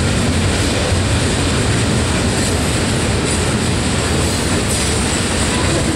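Freight cars of a mixed freight train rolling past at close range: a steady rumble of steel wheels on the rails.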